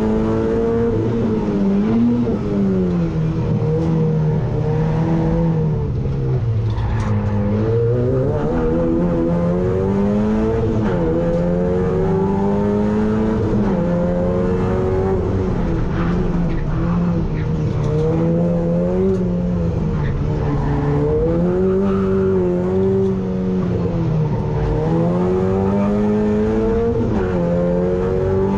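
Opel Astra GSI race car's engine heard from inside the stripped, roll-caged cabin, driven hard round a track. The revs rise and fall again and again through the corners, dropping lowest about seven seconds in.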